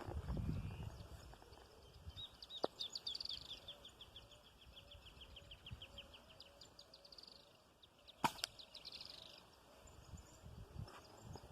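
A small wild bird sings a rapid trill of short, high, falling chirps, about eight a second, for several seconds; the trill is taken up again briefly after a sharp click about eight seconds in. A low rumble comes at the very start.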